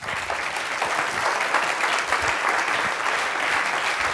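Audience in a lecture hall applauding steadily, many hands clapping at once, starting abruptly right at the close of a talk's answer.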